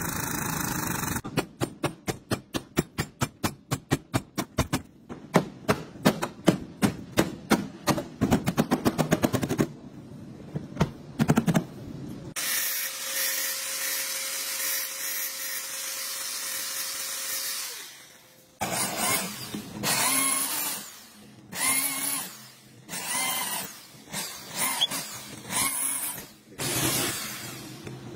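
A fast run of sharp knocks, then an angle grinder running steadily against a small metal part for about six seconds, then a Bosch electric drill cutting into a car's sheet-metal body rail in repeated short bursts.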